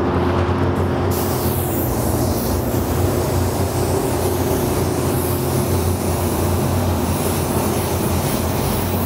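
Paint booth fan running with a steady hum, joined about a second in by the hiss of a small LPH-80 spray gun at about 15 PSI spraying paint onto a panel.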